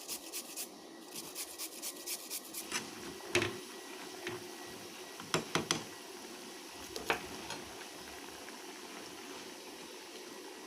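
A spoon stirring porridge in a pan. It clinks against the pan in a quick, regular run of strokes for the first few seconds, then gives a few separate louder knocks, and then only a faint steady hiss remains.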